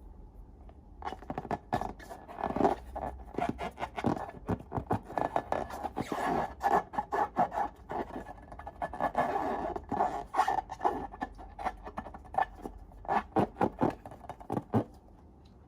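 Slime being mixed and worked, heard as a dense run of quick scraping and crackling strokes. It starts about a second in and stops shortly before the end.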